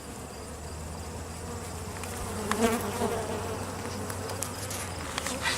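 Honey bees buzzing around an open hive, a steady hum, with a few short clicks about halfway through and near the end.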